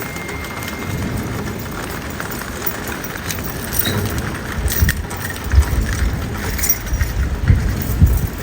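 Wind and rain from an approaching hurricane, with a steady rushing hiss and scattered clicks. From about four seconds in, gusts buffet the microphone in low, rumbling surges.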